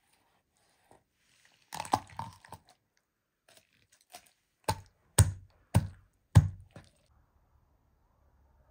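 Large kitchen knife cutting through raw chicken on a wooden cutting board: a crackling crunch of bone and joint about two seconds in, then four sharp chops, each with a thud on the board, about half a second apart.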